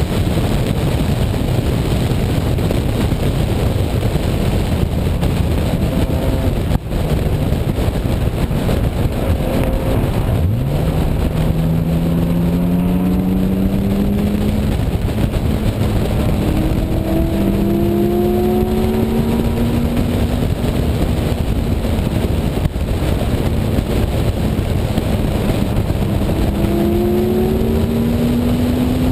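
1998 BMW E36 M3's straight-six engine pulling hard under acceleration, its pitch climbing steadily several times over, under heavy wind and road noise through the open side window. The engine note dips briefly twice.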